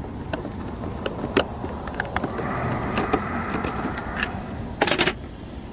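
Pro Boat Recoil 2 RC boat's brushless motor whining at a distance, with a faint steady high tone for a couple of seconds in the middle; the owner says it has no power on an old, worn-out battery. A few sharp clicks throughout, loudest in a short cluster about five seconds in.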